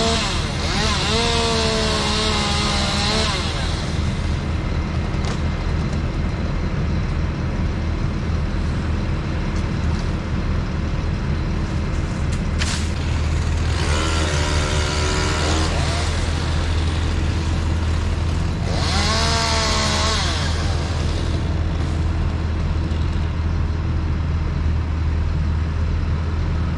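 Chainsaw revving and cutting limbs in three bursts of a few seconds each, the first at the start and two close together past the middle, its pitch rising and sagging as it takes the cut. Under it a truck engine runs steadily.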